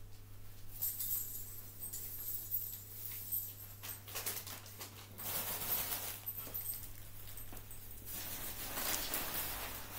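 Rustling and light knocks as someone handles wrapped presents, with bursts of louder rustle about four seconds in and again near the end, over a steady low electrical hum.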